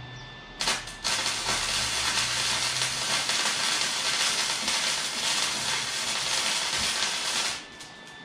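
Electric arc welding on steel tubing: a short strike, then a steady crackling sizzle for about seven seconds that stops abruptly near the end.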